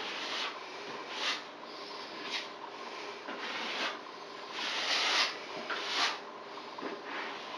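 A brush swishing and scraping as liquid waterproofing membrane is painted over fiberglass mesh tape on the wall boards, in irregular strokes about once a second.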